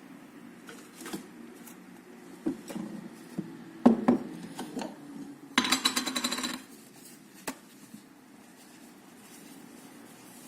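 Small hard parts and tools being handled on a work surface during a graphics card teardown: scattered clicks and knocks, the loudest around four seconds in, then a rattle of rapid ticks lasting about a second a little past halfway.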